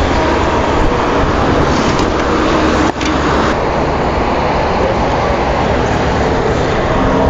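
Wind buffeting the microphone high up in the open, a steady rushing noise that drops out briefly about three seconds in.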